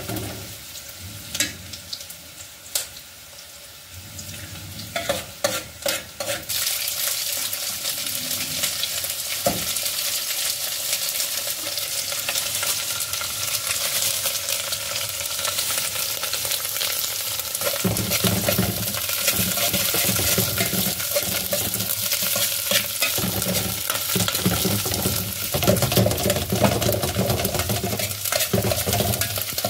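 Food frying in an aluminium pot on a gas burner while a metal spoon stirs and scrapes against the pot. The first few seconds are mostly spoon scrapes and clicks; about six seconds in, a steady sizzle starts and keeps on under the stirring.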